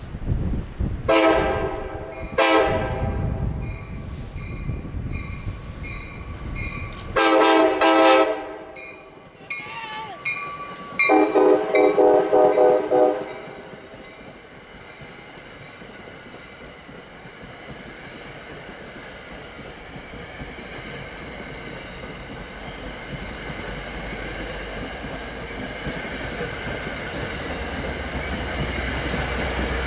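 Passenger train horn sounding a chord of several notes in four blasts, the last one the longest, over a low locomotive rumble. After that the rumble of the train and its wheels on the rails grows steadily louder.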